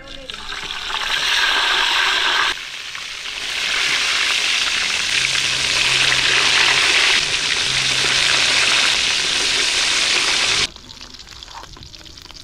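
Fish steaks frying in hot oil in a wok, a loud, even sizzle. It dips suddenly about two and a half seconds in, comes back strong, and drops sharply to a quieter sizzle near the end.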